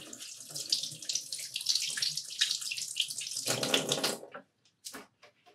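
Kitchen tap running as a persimmon is rinsed under it. The water is heavier for a moment and then stops about four and a half seconds in.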